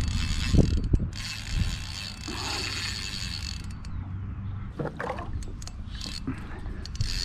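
Electric trolling motor on a kayak running with a steady whir and low hum, which falls away a little over halfway through.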